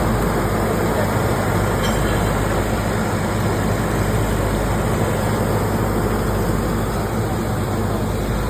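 Nilgiri Mountain Railway train running, a steady rumble with a low hum heard from on board.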